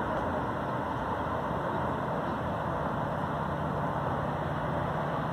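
Steady rush of distant freeway traffic on Interstate 80, with a faint low engine hum standing out in the second half.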